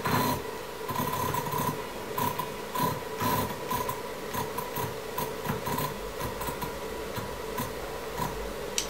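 Stepper motors of a small CNC router giving short, irregular whines of one steady pitch with small clicks, as the axes are nudged by hand in small steps to line the bit up over the tool-setting block.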